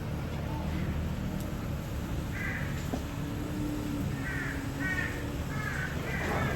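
A crow cawing, once about two seconds in, then a run of caws in the second half, over a low steady hum.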